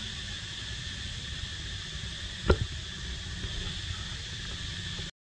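Steady background hiss with one sharp click about two and a half seconds in. The sound cuts off suddenly near the end.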